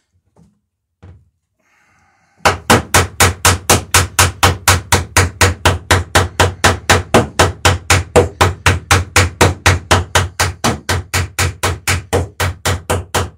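Hammer tapping rapidly and steadily, about four light blows a second, starting about two and a half seconds in: peening over the end of a copper rivet on a dory's lapped planking.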